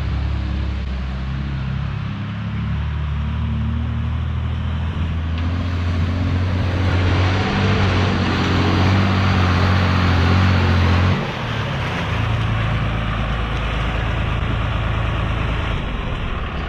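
12-valve 5.9 Cummins turbo diesel in a dually pickup driven hard off-road, its note climbing and growing louder for several seconds, then dropping off sharply about eleven seconds in and settling to a lower, steady run.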